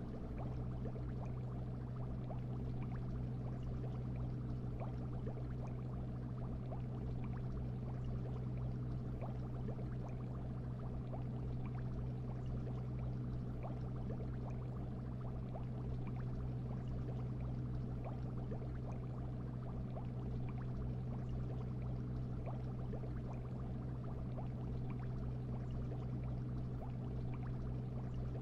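Fish tank ambience: water bubbling continuously in an aquarium, with many fine bubble pops over a steady low hum.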